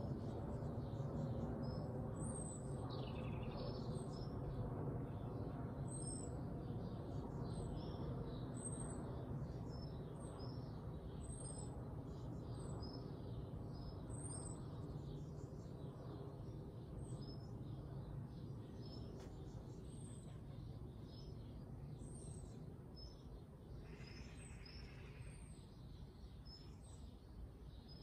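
A small garden bird repeating a short, high call about once a second, with a few other brief calls, over a steady low background rumble.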